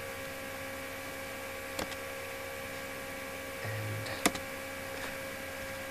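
Steady electrical hum made of several fixed tones over faint hiss, with two short sharp clicks, about two and four seconds in.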